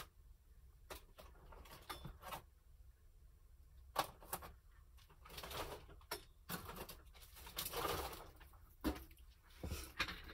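Scattered small knocks, clicks and rustling of craft supplies and containers being picked up and handled on a work table.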